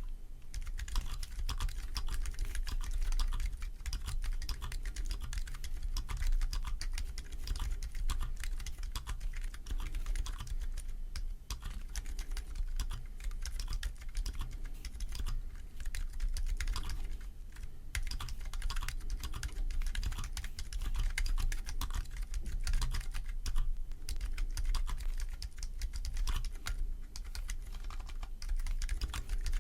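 Typing on a Keychron Q2 aluminium-case mechanical keyboard with Gazzew Boba U4 silent tactile switches (62 g, pre-lubed) and stock keycaps. The key presses are super silent, muted clicks in a steady run with only brief pauses, recorded with the gain turned up very high.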